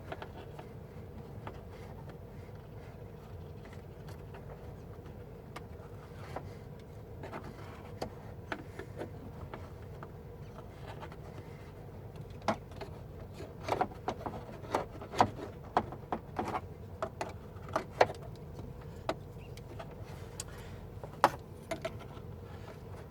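Scattered small clicks, taps and rattles of truck door trim parts being handled and fitted back into place, coming more often from about halfway in, over a steady low hum.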